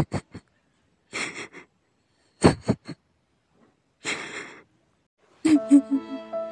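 A girl's crying breaths: short gasping sobs and sniffs, three of them about a second and a half apart. Sad music comes in near the end.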